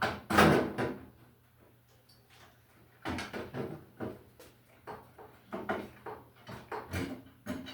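Sheet-metal range hood cover being handled and fitted into place: a loud clunk and rattle about half a second in, then, after a short lull, a run of smaller knocks and scrapes from about three seconds on.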